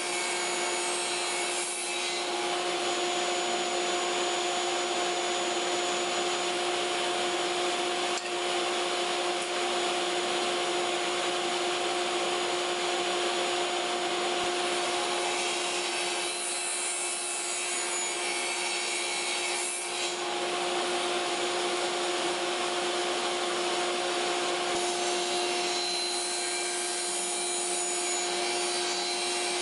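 Sliding table saw running at speed with a steady hum over a constant hiss, as a small wood block is fed through the spinning blade on the sliding carriage.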